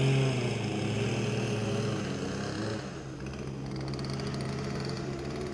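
Boat motor running with a steady low hum, its pitch dropping slightly about three seconds in.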